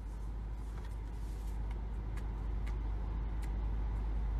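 Steady low rumble inside a car, slowly growing louder, with a few faint soft clicks over it.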